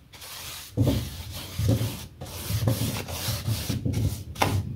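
Rubbing strokes by hand against the wooden chair, a scratchy hiss in irregular strokes about one or two a second.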